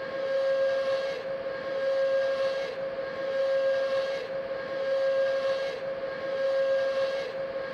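Emergency alert signal played backwards: a steady whistle-like tone with overtones over a hiss that swells and fades about every second and a half.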